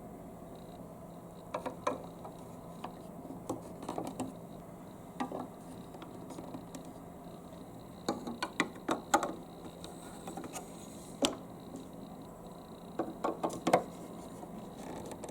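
Hard plastic marble-run parts clicking and knocking, in irregular clusters of sharp clacks with short pauses between.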